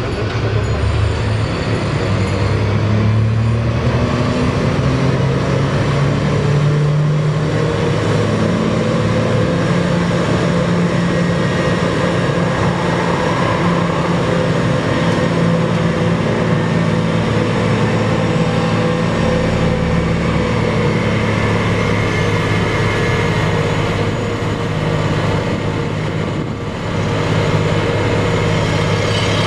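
Heavy diesel construction machinery running: the engines of a crawler crane and hydraulic excavators working, their note rising and falling with load.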